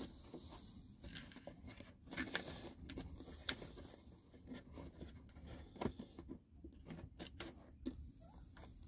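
Faint scattered clicks, crinkles and rustles of hands fitting foil-faced air-conditioner ductwork into place.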